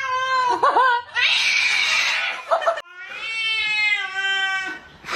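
A cat yowling: a long, drawn-out call that wavers at its end, then a hiss lasting nearly two seconds, then a second long yowl.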